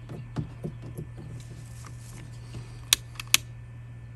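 Two sharp clicks about half a second apart, from a long-reach utility lighter being triggered to singe the freshly cut end of a bungee cord so it won't unravel. Light rustling and small ticks of the cord being handled run over a steady low hum.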